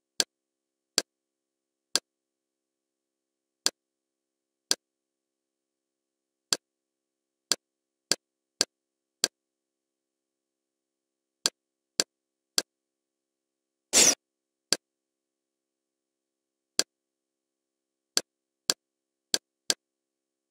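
Kodi skin menu navigation sounds: short, sharp clicks at irregular intervals, roughly one or two a second, with one longer, louder sound about fourteen seconds in.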